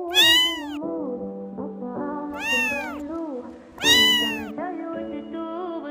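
Kitten meowing three times, each meow rising and falling in pitch, over background music.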